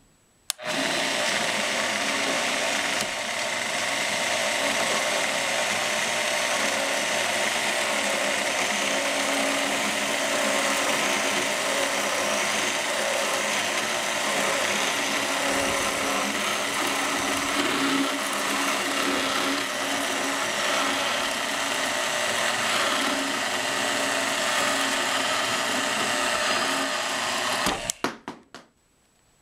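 DeWalt portable bandsaw running steadily as its blade saws through the steel barrel of an AR-180B rifle just behind the integral muzzle brake. It starts just after the beginning and stops suddenly near the end, when the blade finishes the cut.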